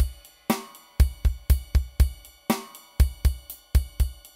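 Background music with a steady drum-kit beat: kick, snare and hi-hat hits about twice a second.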